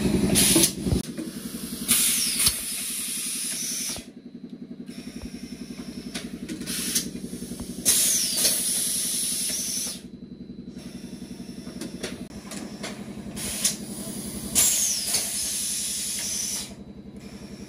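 Plastic bottle blow-moulding machine cycling: about every six seconds a loud burst of compressed-air hiss, which runs for about two seconds and cuts off suddenly, over a steady machine hum.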